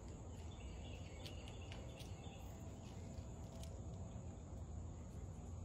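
Faint outdoor ambience: a steady high-pitched insect drone, like crickets, with a few faint short chirps over a low background rumble.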